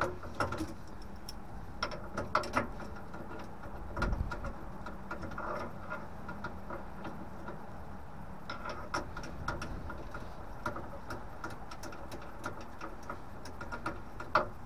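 Scattered metallic clicks and light knocks from a spanner and gloved hands working on a nut and pipe fittings inside a combi boiler's casing. A steady low rumble runs underneath, and the loudest knocks come about two seconds in and near the end.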